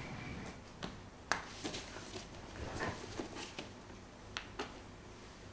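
A stiff brown paper package being handled and turned over in the hands, giving a scatter of short, sharp crackles and clicks, loudest about a second in.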